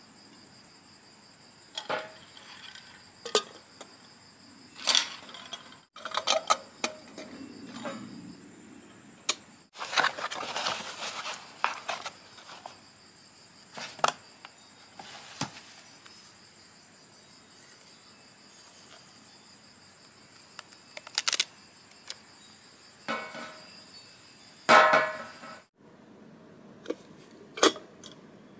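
Objects being unpacked and handled on a tray: glass cups and lids clinking and knocking in a dozen or so short scattered taps, with longer rustles of packaging about a third of the way in and again near the end. A faint steady high tone sits underneath until near the end.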